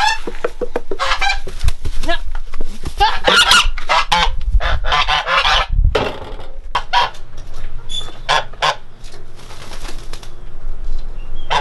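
Domestic goose honking repeatedly, in a dense run of short calls over the first six seconds, then fewer, scattered calls with some clicks and knocks.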